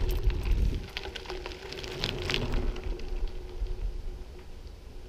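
A bicycle on the move: scattered light clicks and rattles with a faint steady hum, over a low rumble that drops away about a second in.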